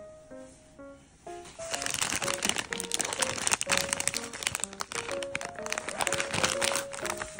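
Plastic snack packaging crinkling and crackling as it is handled and opened, starting about two seconds in and stopping just before the end, over a light background melody of soft keyboard notes.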